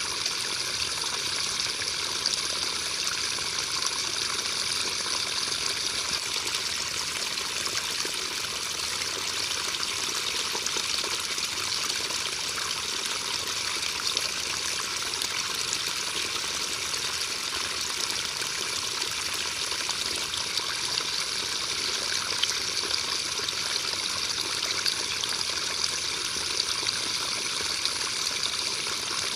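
Steady rain falling: an even hiss of countless drops that holds the same level throughout, with no thunder.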